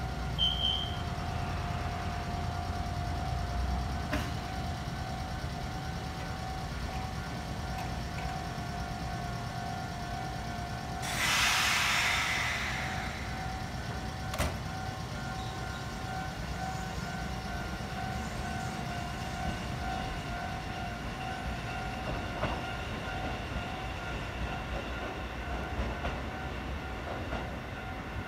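Kotoden Nagao Line electric train at a station, giving a steady electrical whine, with a loud hiss of air about eleven seconds in that lasts a couple of seconds, plus a few faint clicks.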